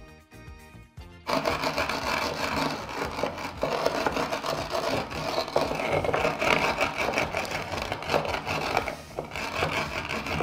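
A wooden rolling pin crushing coarse salt crystals on a wooden cutting board: a loud, continuous gritty grinding and crackling that starts about a second in. Light background music is heard before it.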